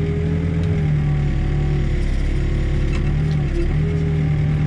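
Backhoe's diesel engine running steadily, with a brief dip in its tone about three and a half seconds in.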